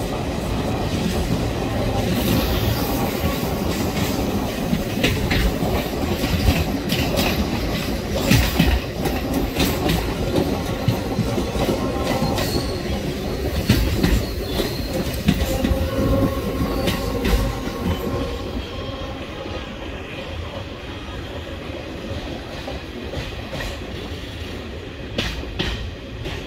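Indian Railways passenger coaches running on a curve, heard from on board: steady rumble of the wheels with repeated clacks over the rail joints and a few short wheel squeals, easing off somewhat in the last third.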